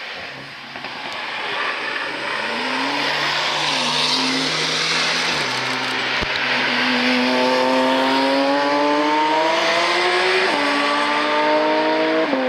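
Modified Porsche 992 GT3 RS test mule accelerating hard out of a corner. Its engine note climbs steadily, drops with an upshift about ten seconds in, then climbs again to a second shift at the end. The spotter thinks it sounds like an early 992 GT2 RS prototype.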